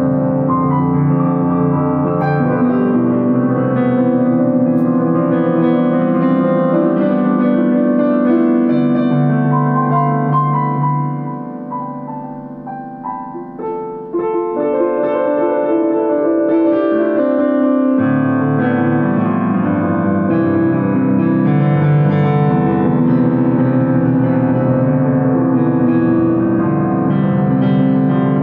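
Keyboard music, piano-like, with sustained chords under a melody. It thins to a quieter passage about halfway through, then comes back full a few seconds later.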